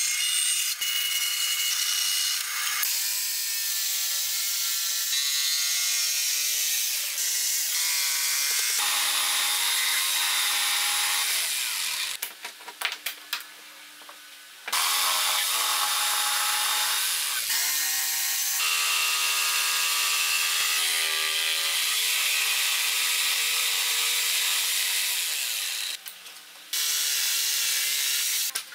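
Electric saws cutting wooden boards in a string of short clips: a band saw, and a jigsaw near the end, each a loud hiss with a motor whine whose pitch shifts as the cut goes. Twice the cutting stops briefly, leaving a few wooden knocks.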